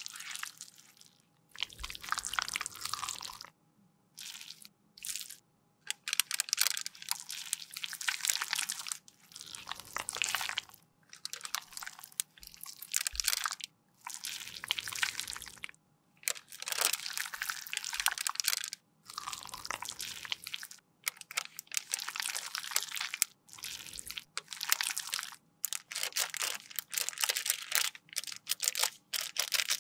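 Close handling sounds of lip gloss being repaired: applicator wands drawn out of their tubes, and a plastic piping bag of red lip product squeezed and kneaded between the fingers. The sounds come in bursts of one to two seconds with short pauses between them.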